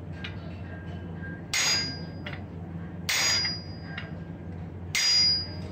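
Three hammer blows, about a second and a half apart, struck onto a handled top tool held against red-hot steel on an anvil, each with a short metallic ring. A steady low hum runs underneath.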